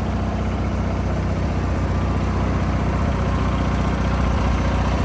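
Craftsman II garden tractor's small engine running steadily as the tractor is driven along the trailer deck.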